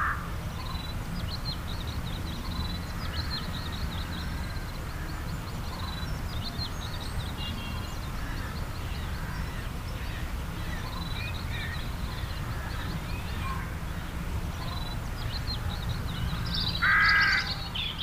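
Birds calling: small birds chirping throughout and one loud, harsh call near the end, over a steady low rumble.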